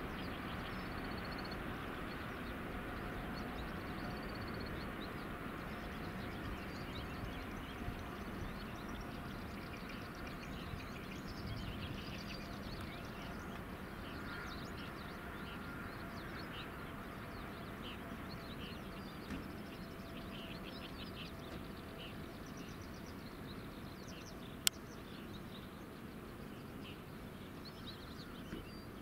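Jet engines of a twin-engine airliner taxiing away, a steady distant rumble with a faint whine that slowly fades, while small birds chirp throughout. A single sharp click near the end.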